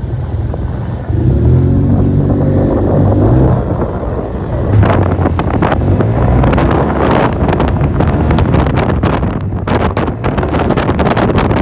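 Yamaha TMAX 530 scooter's parallel-twin engine running at low road speed, a steady low engine note for the first few seconds. From about five seconds in, wind buffets the microphone in rough gusts over the engine as the scooter rides along.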